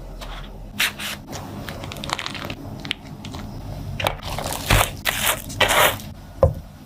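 Irregular scraping and crunching noises from food preparation, a run of uneven strokes that grows busier and louder after about four seconds.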